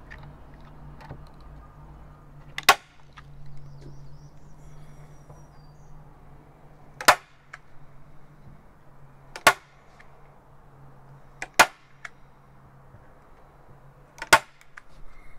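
Manual staple gun firing staples through wet watercolor paper into a foam board, five sharp snaps a few seconds apart.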